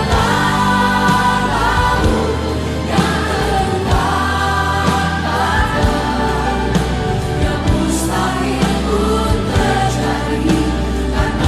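Christian worship song sung by a choir over a band, with sustained bass and cymbal strokes.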